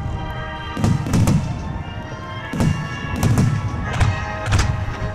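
Starmine firework shells bursting in quick succession, about six deep booms with rumbling tails, over music playing.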